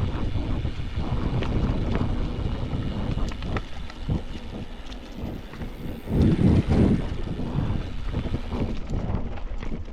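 Mountain bike descending a rough dirt trail: wind buffeting the microphone over the tyres rolling and the bike rattling on rocks and roots, with a louder, rougher stretch about six to seven seconds in.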